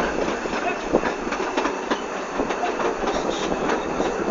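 Narrow-gauge railway carriage running along the track, heard from on board: a steady rumble with scattered clicks of the wheels over the rails.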